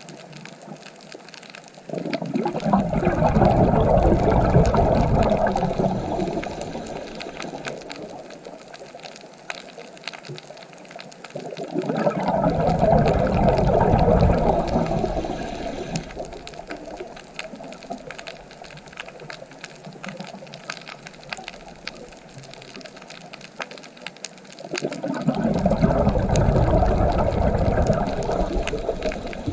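Ocean waves breaking on the shore three times, about ten seconds apart. Each wave comes in suddenly, swells and then washes out over several seconds, with a quieter steady wash between.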